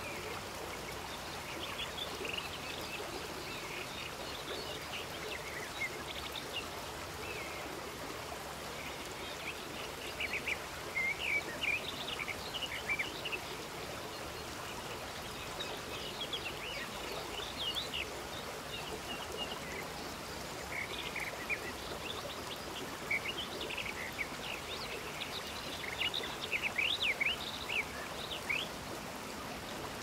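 Outdoor ambience: small birds chirping in short, high calls over a steady rushing background noise; the chirps come in clusters, busiest in the middle and near the end.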